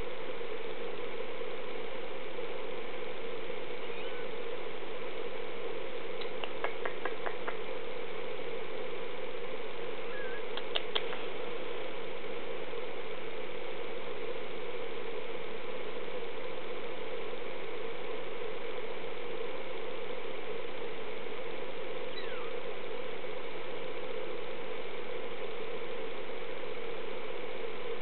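A steady machine-like hum, with a short run of faint clicks about a quarter of the way in and a couple more a little later.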